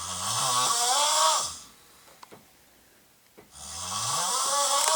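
A sleeping man snoring loudly: two long, rasping snores, each lasting about a second and a half and rising slightly in pitch, the second starting about three and a half seconds in after a near-quiet pause.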